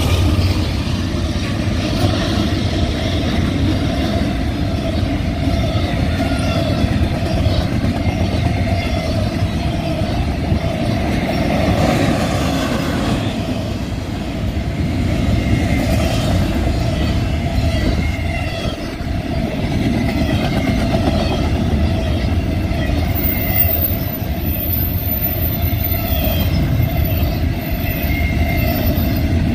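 Double-stack intermodal well cars of a Union Pacific freight train rolling past: a steady rumble of steel wheels on rail, with faint ringing tones now and then.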